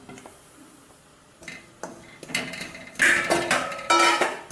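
A steel bowl knocks and clangs against a stainless-steel kadai, the metal ringing after each knock, as rice flour is tipped into the dry pan. A wooden spatula scrapes through the flour. The sound starts quiet and then comes as a few loud knocks in the second half.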